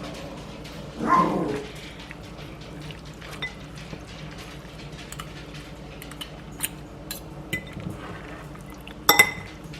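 Juice being poured into a bowl in a kitchen, with a short pouring swell about a second in. Scattered light clinks of dishes follow, and a sharp ringing clink of a dish comes near the end.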